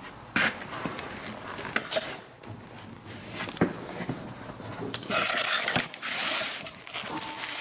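Rustling and handling noise from a handheld camera being moved about, with scattered light clicks and knocks. A longer burst of rustling comes about five seconds in.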